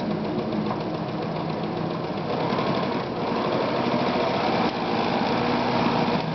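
Victoria 124 sewing machine running steadily at high speed on its electric motor drive, sewing a straight stitch through several layers of denim.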